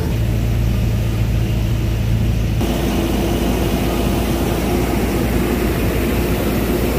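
Truck engine running steadily under road and tyre noise while driving. The sound changes abruptly about two and a half seconds in, and one low engine tone drops out.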